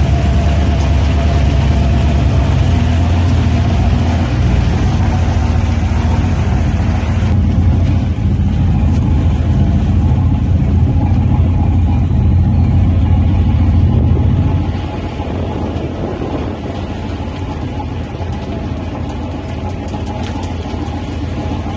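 Twin gasoline inboard engines of a 1978 Carver 28 cruiser running under way, a steady low rumble. The rumble drops somewhat about two-thirds of the way through.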